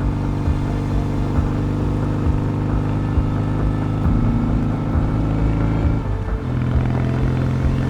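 Kawasaki W650 motorcycle's parallel-twin engine running steadily while riding, its pitch dropping a little about six seconds in, with a light regular thump about once a second.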